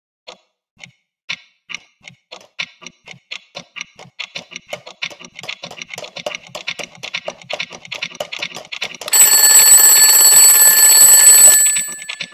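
Twin-bell alarm clock ticking, the ticks coming faster and faster, then its bell ringing loudly about nine seconds in for two and a half seconds before cutting off.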